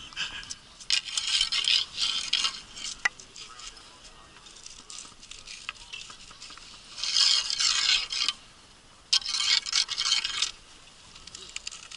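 Staff and sponge scrubbing inside the bore of a reproduction 1841 field 12-pounder cannon just after a blank was fired, heard as three bursts of rough scraping, with a sharp click about three seconds in.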